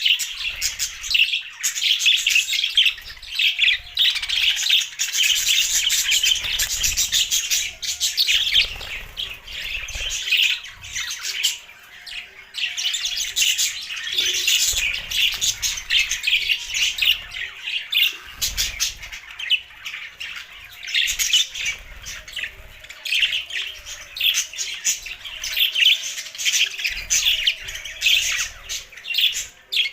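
Budgerigars chattering and chirping in quick, dense bursts of high, rapid calls, pausing briefly a few times.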